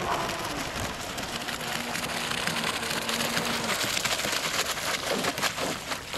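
Electric RC hydroplane with a brushless motor coming off the throttle: its whine drops in pitch at the start, then a hiss of water and spray from the hull, with a few splashes near the end as it slows and settles.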